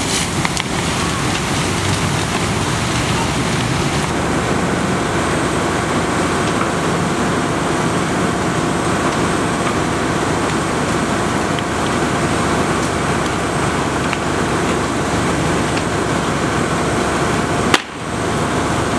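Steady, loud noise at a fully involved structure fire: the building burning, with fire engines running. A sharp click near the end, followed by a brief drop in the sound.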